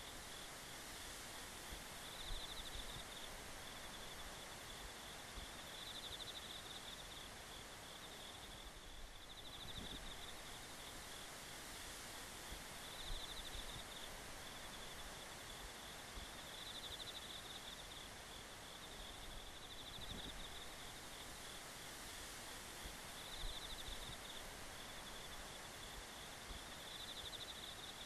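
Faint chorus of insects trilling, a steady high pulsing sound that swells about every three and a half seconds, over a low background hiss.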